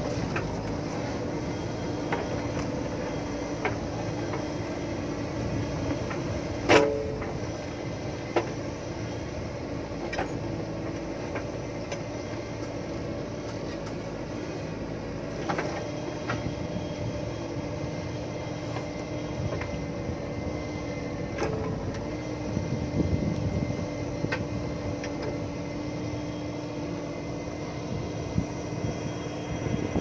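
JCB backhoe loader's diesel engine running with a steady hum while the backhoe bucket digs loose gravel. Scattered knocks sound through it, with one loud, sharp clank about seven seconds in.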